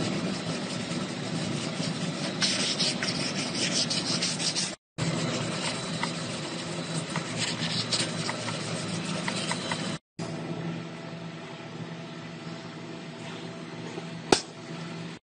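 Plastic spreader and fingertips rubbing and smoothing a thin coat of paste over a car's sheet-metal panel, with scratchy strokes over a steady hum, broken by three brief silent gaps. A single sharp click comes near the end.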